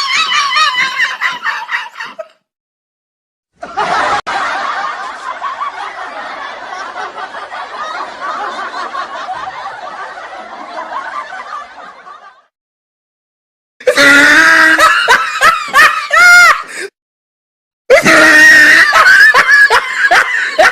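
A run of separate laughter sound effects with short silent gaps between them. A laugh trails off, then several people laugh together for about eight seconds, then one person gives two bursts of high-pitched, pulsing laughter.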